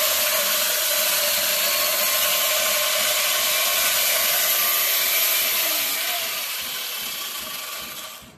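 220 V electric chainsaw cutting into a stone block: a loud, harsh grinding noise over a steady whine. About six seconds in it eases off and dies away as the saw comes out of the cut.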